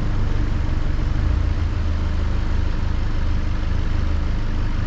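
A 4x4 vehicle's engine running steadily with a low engine note.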